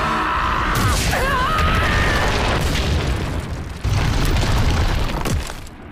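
Anime battle sound effects: heavy explosive booms with crashing rock debris and a deep rumble, hits landing about a second in, near four seconds and again near the end, where the noise falls away.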